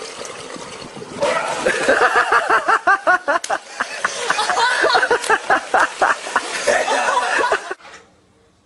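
A person laughing hard in rapid, repeated bursts, starting about a second in and cutting off suddenly near the end.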